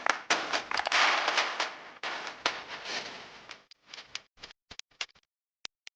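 Dense crackling and popping that fades out over about three and a half seconds, then thins to a few separate sharp cracks near the end.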